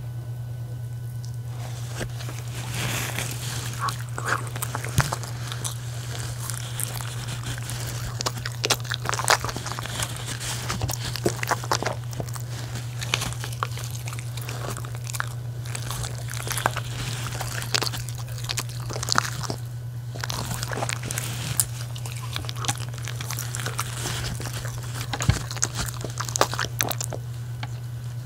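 A miniature schnauzer and a West Highland white terrier biting and chewing pieces of cooked dog-food donut: irregular chewing and crunching clicks starting about two seconds in, over a steady low hum.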